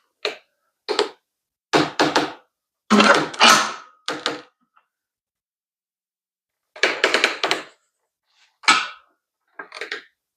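Metal tools clanking and knocking in short clattering bursts as a car jack and wrench are worked as a makeshift press to seat a bicycle headset cup. There is a pause of a couple of seconds about midway.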